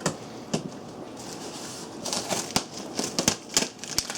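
A cardboard shipping box being handled and pulled at by hand while it is opened: irregular crinkling, scraping and sharp taps, busier in the second half.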